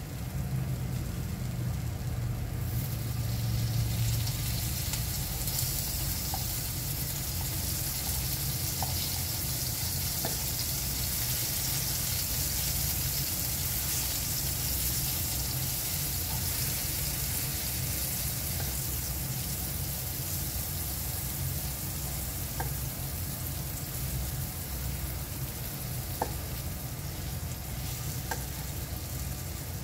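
Oat-and-banana pancakes sizzling in a nonstick frying pan: a steady frying hiss that swells about two seconds in, over a low hum. A few light clicks of a spatula against the pan come in the second half.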